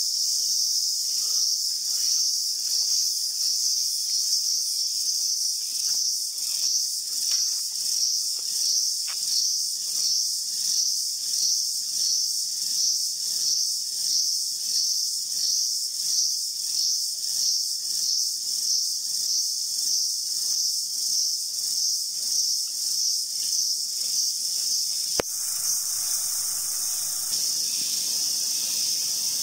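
Loud chorus of forest insects: a high, steady buzz that swells and fades about three times every two seconds. About 25 seconds in there is a sharp click, and after it the buzz runs on evenly without the pulsing.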